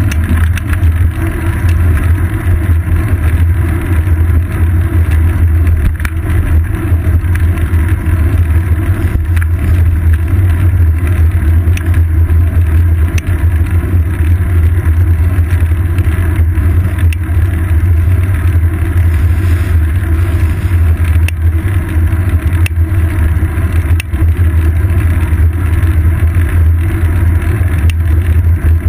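Steady, loud, low rumble of road vibration and wind picked up by a seat-post-mounted GoPro camera in its housing on a moving bicycle, with a few light clicks from the mount over bumps.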